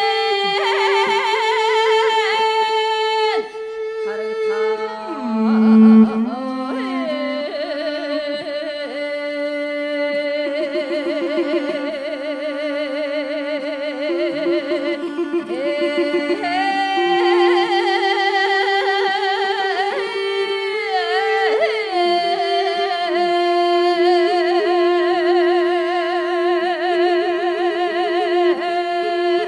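Mongolian long song (urtyn duu) sung by a woman: long drawn-out notes with fast wavering ornaments, over a bowed string instrument holding lower notes.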